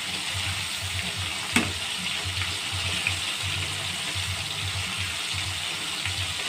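Battered squid rings deep-frying in very hot oil, a steady sizzle and bubbling. There is a sharp click about one and a half seconds in.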